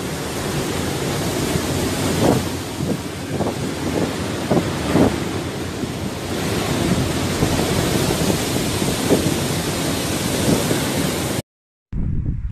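Storm-force wind buffeting the microphone on a ship's open deck, over the rush of a rough, breaking sea, with heavy low gusts. Near the end it cuts out for half a second and gives way to quieter wind gusting on the microphone.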